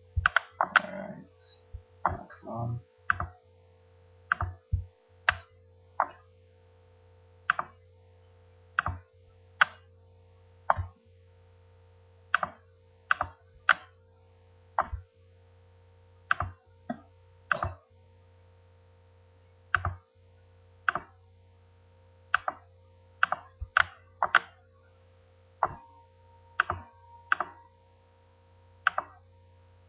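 Computer mouse clicking: single sharp clicks at uneven intervals of about one a second, as vertices are picked one by one, over a steady low electrical hum.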